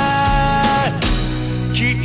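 Japanese pop-rock song: a male voice holds the last note of a sung line over a band with drums, and the note ends about a second in, leaving the band playing.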